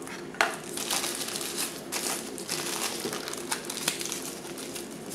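Thin white packaging wrap crinkling as it is pulled off a phone charger and crumpled by hand, with irregular crackles and a sharp one about half a second in.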